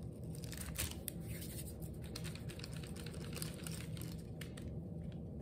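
Faint rustling and crinkling of a paper sheet, with small scattered clicks, as hands press and roll air dry clay on it, over a low steady room hum.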